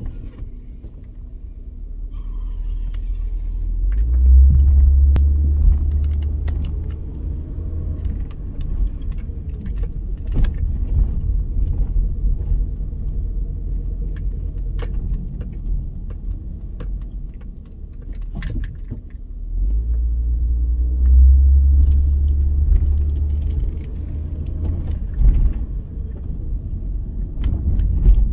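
Car interior sound while driving: low engine and road rumble that swells strongly twice, as the car pulls away, with frequent small clicks and rattles from the cabin.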